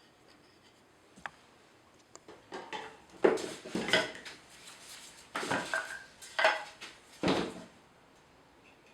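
Hard objects, metal among them, clinking and clattering against one another in three bursts, after a single sharp click about a second in.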